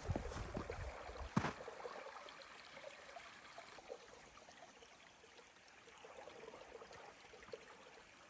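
Faint water trickling and running, with a few low thumps about a second in.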